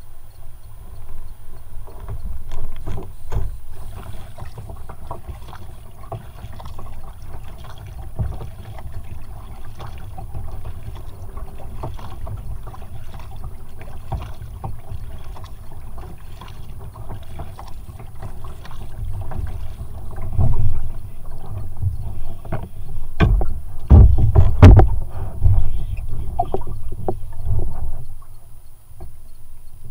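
Kayak being paddled on open water: paddle blades splashing and dripping, water lapping the hull, and wind rumbling on the microphone, with irregular knocks and thumps that are loudest about three-quarters of the way through.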